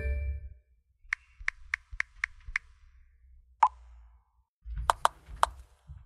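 Smartphone message sounds: a chime tone dies away at the start, then six quick keyboard-tap clicks, about four a second. A single short WhatsApp-style pop comes a little past the middle, and three more taps follow near the end.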